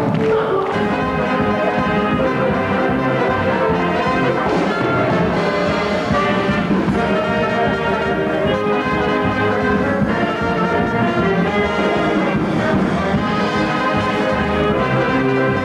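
Band music led by brass instruments, playing continuously without a break.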